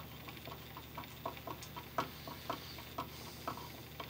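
Hand screwdriver turning a screw on a light switch set in a plastic electrical box, the screw giving a series of short, faint, irregular clicks and squeaks, about three a second.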